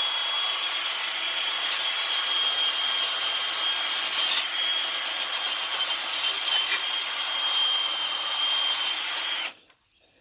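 Steel wire brush scrubbing a brake caliper, cleaning off dirt to prepare the metal for paint: a steady scraping with a thin high whine running through it. It stops suddenly near the end.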